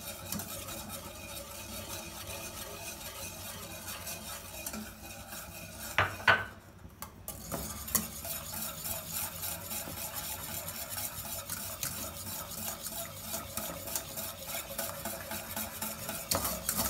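Wire whisk beating milk and custard mixture in a metal saucepan: a fast, steady clinking and scraping of the wires against the pan, as the custard paste is whisked into the milk little by little. Two louder knocks come about six seconds in, then a short pause before the whisking goes on.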